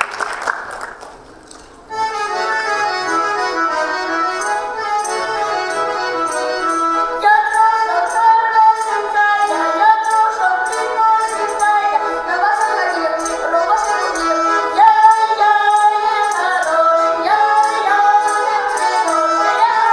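The last of the applause dies away, then about two seconds in a button accordion starts a Russian folk tune, with sharp clacks of a wooden treshchotka (folk clapper) marking the beat. A girl's folk singing joins in about seven seconds in.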